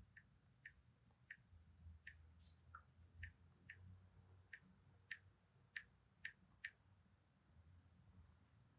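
Faint, uneven ticks of typing on an iPad's on-screen keyboard: about a dozen single taps over some six seconds, stopping shortly before the end.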